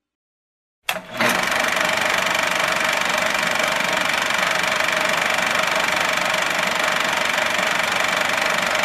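Semi-automatic flux-cored arc welding with Ar-CO2 shielding gas: the arc strikes about a second in and then crackles steadily.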